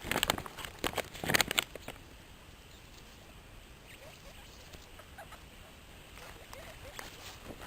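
Guinea pigs scurrying, with a quick run of patters and rustles for about the first two seconds, then quieter with a few faint short squeaks.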